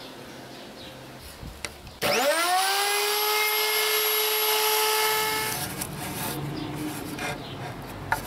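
Electric wood router switched on about two seconds in, its motor whining up to speed and holding a steady high pitch. A few seconds later the whine gives way to a lower, rougher sound as the edge-forming bit cuts along the board's edge to take off the corner.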